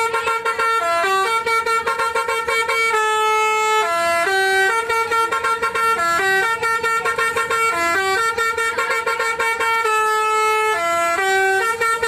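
Bus telolet horn, a multi-tone air horn, playing a tune of quickly changing notes with hardly a break, heard from inside the bus.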